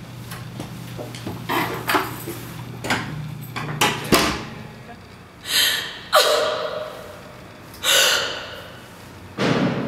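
A door being handled, with short knocks and a sharp latch click about four seconds in. Then a woman crying: four ragged, gasping sobs.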